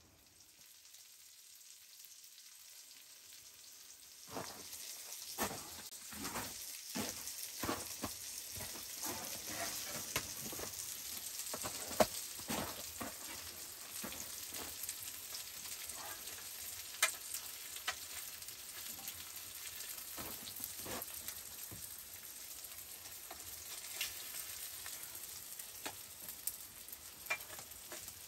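Food sizzling in a hot frying pan, faint at first and louder about four seconds in, with a wooden spatula repeatedly scraping and tapping against the pan as the potato and egg hash is stirred and dished out.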